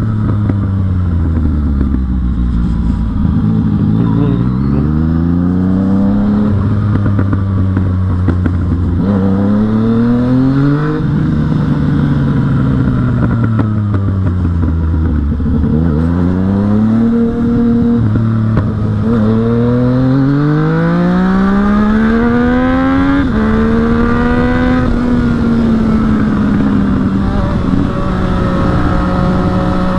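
Yamaha MT-09's three-cylinder engine pulling hard and easing off several times, its pitch climbing with each pull and dropping sharply at the gear changes, then holding steady at a cruise near the end.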